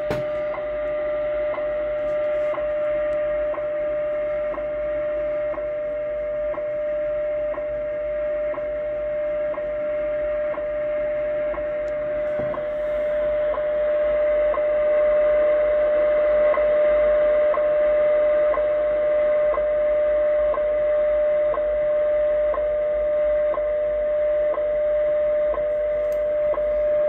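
The WWV time signal on 25 MHz, received in AM on a Yaesu FTdx10 transceiver: a steady audio tone with a short tick every second, over shortwave static. The signal swells somewhat in strength about halfway through. Hearing 25 MHz come in at all is taken as a sign of propagation changing toward fall and winter.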